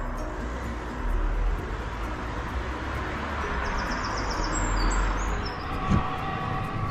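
Steady outdoor rumble and hiss, with a few short high chirps about halfway through and a single thump about six seconds in.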